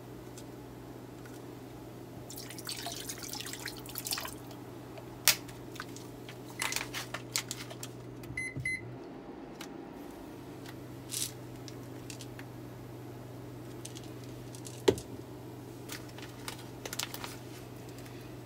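Kitchen handling noises, clicks and short rustles from a plastic bottle and a bag of salt being handled over a stainless-steel pot, with a steady low electrical hum behind. About eight and a half seconds in come two short electronic beeps and the hum cuts out for a moment before returning; one sharp click near the end is the loudest sound.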